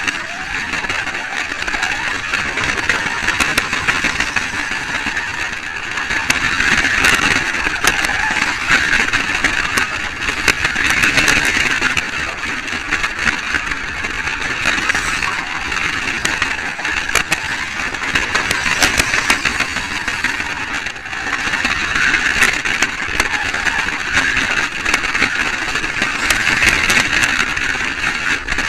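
Slot car's small electric motor whining continuously as it laps the track, slowed down to 60% speed; the pitch wavers up and down and there are frequent small clicks and rattles.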